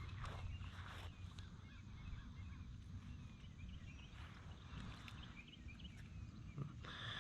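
Faint outdoor ambience: a steady low rumble with small birds chirping, and a few brief knocks in the first second or so.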